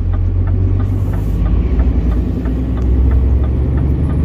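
Scania truck's diesel engine heard from inside the cab while driving, a steady low drone, with a faint regular ticking over it.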